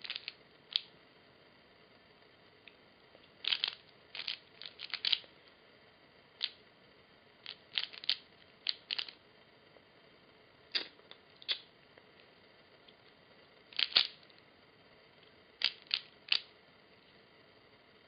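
Plastic 3x3 Rubik's cube being turned by hand: quick flurries of clicks as the layers snap round, broken by short pauses.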